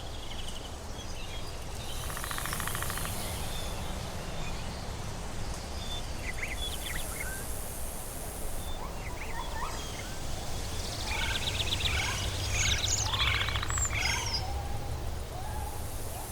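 Tropical forest ambience: several birds chirping and trilling, busiest in the second half, over a steady low rumble and a high insect-like hiss that comes and goes.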